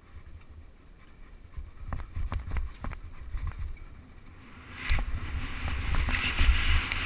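Mountain bike descending a forest trail: a low rumble of tyres on dirt and wind on the microphone, with sharp knocks and rattles as it hits bumps. From about five seconds in, a louder hiss of tyres running over loose gravel takes over.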